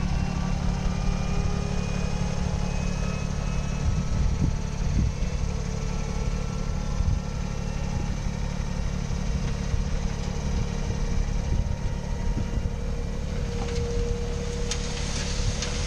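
Dump trailer's electric hydraulic pump running steadily as it raises the loaded bed, a constant low hum. Near the end a rustling hiss comes in as the load begins to slide toward the tailgate.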